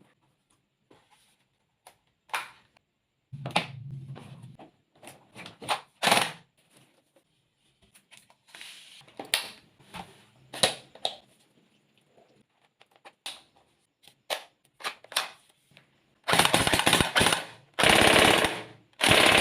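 Clicks and knocks of a Renxiang AK-47 gel blaster being handled, then three long full-auto bursts from its electric gearbox near the end.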